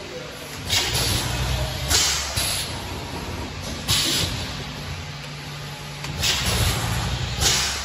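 Thermoforming vacuum packaging machine running: a low steady hum, broken every second or two by a sudden sharp hiss of air.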